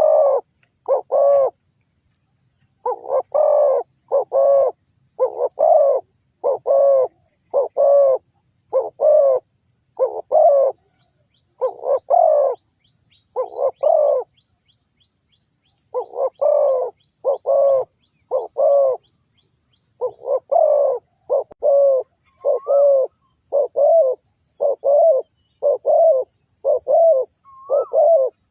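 Spotted dove cooing: a long series of short, low coos at roughly one a second, broken by a few short pauses, with some notes near the end sliding up at the tail.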